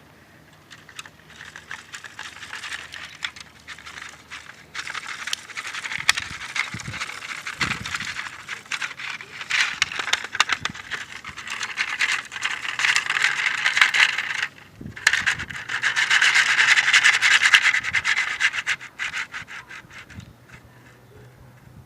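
Lego bricks and plastic plates rattling, clattering and scraping as a Lego model city is shaken to mimic an earthquake. The shaking builds up, is strongest in two long bouts with a brief pause between them, then dies away.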